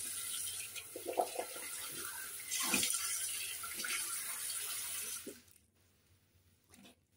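Tap water running into a sink while a face is rinsed with splashing water, stopping suddenly about five seconds in.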